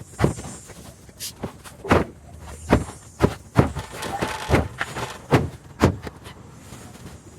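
An irregular series of sharp knocks and thuds, about ten over several seconds.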